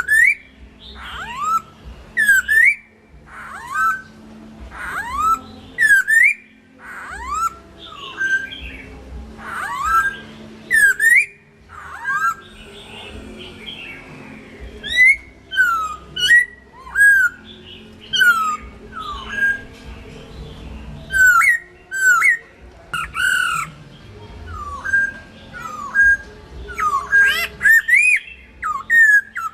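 Chinese hwamei singing: loud, clear whistled notes that sweep up and down, repeated in quick varied phrases with short pauses, mixed with thin high chattering notes.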